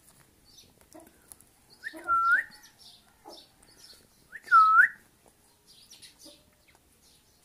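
A pet rose-ringed parakeet gives two clear whistles about two and a half seconds apart, each dipping and then rising in pitch, with faint clicks between them.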